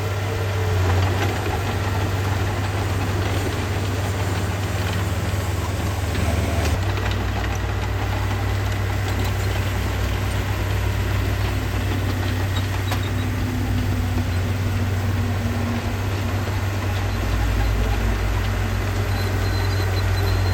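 Heavy construction machine's diesel engine running steadily with a deep, continuous low hum.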